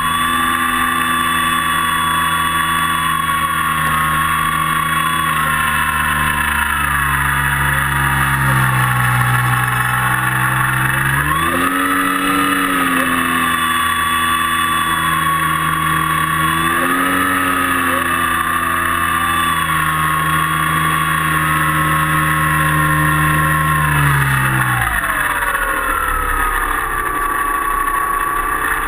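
Model airplane's motor and propeller running in flight with a steady whine, the pitch rising and dipping a few times with the throttle and falling off about four seconds before the end.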